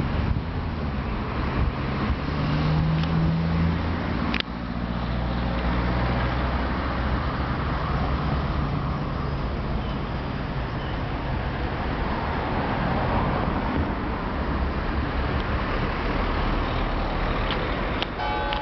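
Steady road traffic: cars and other vehicles running past, with engine tones rising and falling, and one sharp click about four seconds in.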